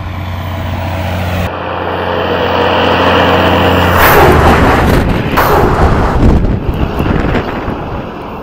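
Diesel semi truck driving up and passing right over the camera about four seconds in. Its steady engine hum grows louder, is loudest with tyre noise as it goes over, then fades as it pulls away.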